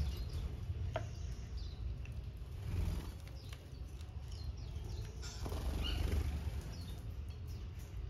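Small aviary birds giving scattered short chirps, with brief wing flutters and a few light clicks, over a steady low rumble.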